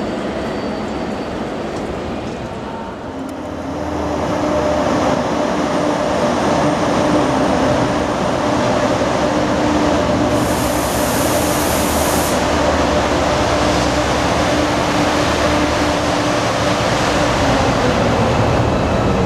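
Quieter distant rail noise at first; about three seconds in, Class 68 diesel-electric locomotive 68005, with its Caterpillar V16 engine, runs slowly past with a steady engine drone holding a low and a middle tone. A high hiss sounds for about two seconds around ten seconds in.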